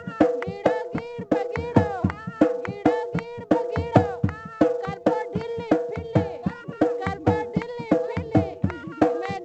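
Hand-played dholak drum keeping a steady fast rhythm, its low strokes bending down in pitch, under a woman singing a Saraiki folk song.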